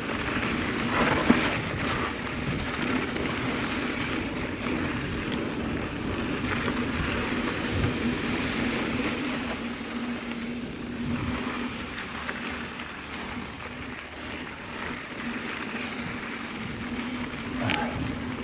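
Wind buffeting the microphone and tyre noise from a mountain bike rolling along a dirt trail, under a steady low hum, with a few light knocks.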